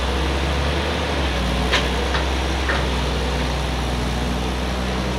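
Hydraulic excavator's diesel engine running steadily, with a few short knocks around two seconds in.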